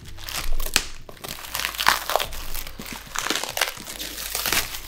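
Black plastic parcel wrapping crinkling and rustling in irregular bursts as it is cut and pulled open, with a few sharper crackles.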